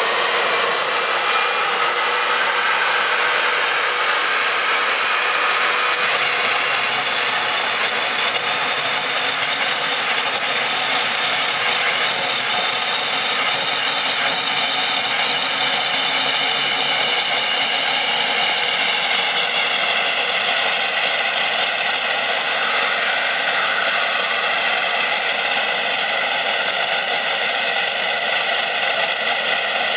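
Homemade jet engine running with a loud, steady rushing whine; the pitch of the whine climbs a little about two-thirds of the way in.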